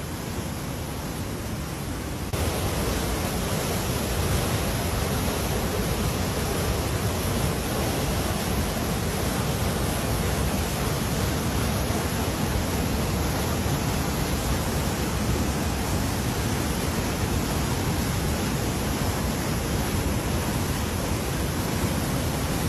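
Steady rushing noise of floodwater flowing, even and unbroken, stepping up in loudness about two seconds in.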